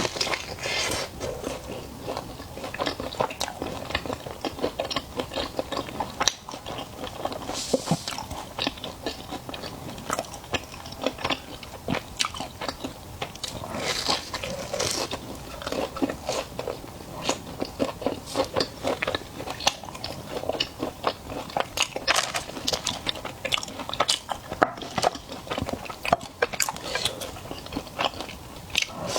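Close-miked eating: a person chewing and biting food, with frequent crisp crunches throughout.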